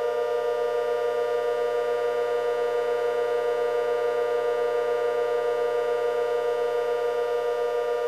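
Warning sirens holding one steady pitch, several tones sounding together with a slight pulsing beat, without rising or falling.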